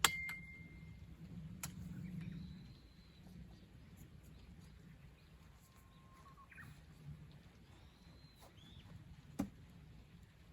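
Quiet outdoor ambience: a few faint, short bird calls over a low, uneven rumble, with scattered sharp clicks. A loud click comes right at the start.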